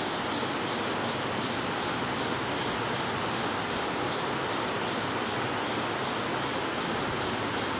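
Steady background hiss of room noise, with a faint high chirp repeating evenly about twice a second, like a cricket.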